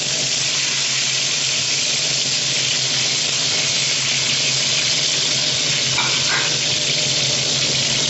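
Qeema-stuffed bitter gourds shallow-frying in about half a cup of hot oil in an aluminium frying pan: a steady sizzle.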